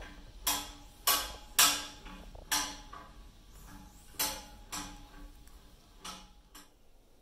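Single-pipe steam heating pipes banging from water hammer: about eight sharp metallic knocks at irregular spacing, each ringing briefly. The loudest come in the first two seconds and they weaken toward the end. The owner suspects an overfilled boiler is causing it.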